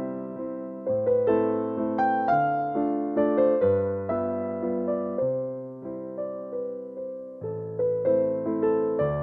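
Background music played on electric piano: a gentle, steady melody over slowly changing bass notes.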